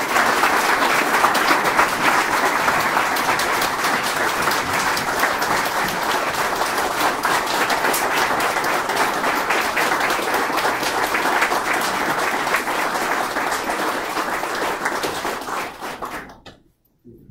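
A small audience applauding: a dense, steady patter of hand claps that thins out and stops shortly before the end.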